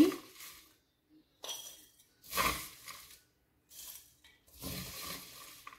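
A spoon scraping up poha in a kadai and tipping scoops of it into a glass bowl, in three separate bouts of scraping and rustling; the loudest is about two and a half seconds in, and a longer one comes near the end.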